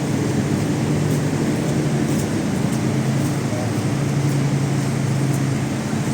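Engines running with a steady, unbroken low hum, typical of petrol generators running during a power outage.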